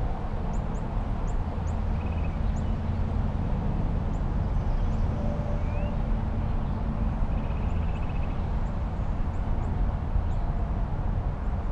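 Woodland ambience: birds chirping, with a few trills and one rising whistle, over a steady low rumble of distant highway traffic.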